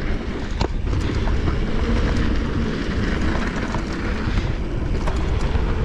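Mountain bike speeding down a dirt trail: a steady rush of wind on the chest-mounted camera's microphone over the rumble of tyres on dirt, with a few sharp rattles from the bike.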